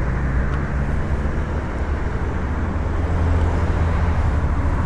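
Steady wind rumble on the microphone of a moving e-bike, mixed with road traffic noise.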